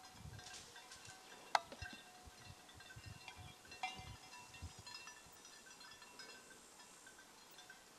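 Faint, scattered tinkling of goat bells from a moving herd, short ringing notes at several pitches, with one sharper metallic clank about one and a half seconds in.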